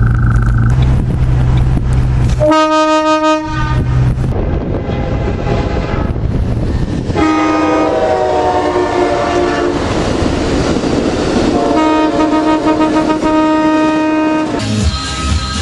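Train-style air horn blasts: a short blast about three seconds in, a longer one from about seven to ten seconds in that sags slightly in pitch, and another about twelve to fifteen seconds in. A low rumble runs under the first few seconds.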